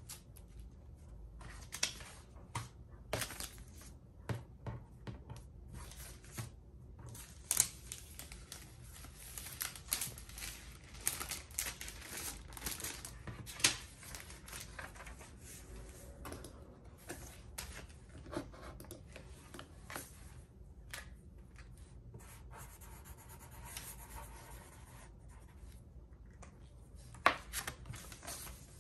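Clear plastic sleeves crinkling and rustling as paper cash envelopes are handled and slid into them, with many irregular sharp taps and rustles.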